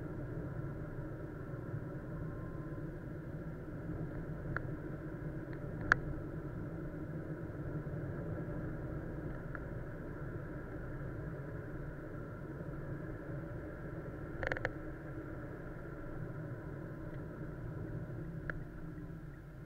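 A car driving, steady engine and road noise picked up by a dashcam microphone, with a few short sharp clicks and rattles.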